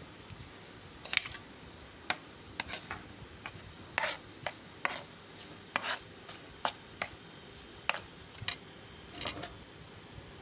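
Steel spoon scraping and tapping against a non-stick frying pan while stirring semolina roasting in ghee: irregular strokes, one or two a second.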